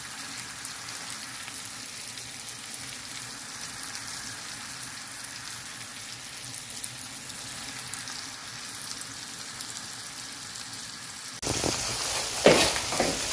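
Breaded chicken wings deep-frying in hot oil, a steady crackling sizzle. Near the end the sizzle turns suddenly louder and a few knocks are heard.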